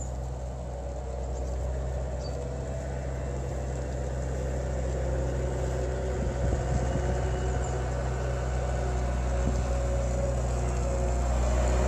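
Diesel engine of a Liebherr wheel loader running with a steady low hum, growing gradually louder as the machine draws closer.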